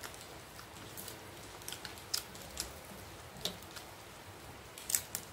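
Fingers mashing rice and dal on a steel plate and crushing pieces of fried papad into it, giving scattered small crackles and clicks. The sharpest pair comes near the end.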